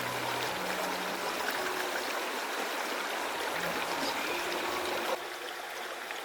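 Stream water flowing steadily, a dense rushing of water that drops away abruptly about five seconds in.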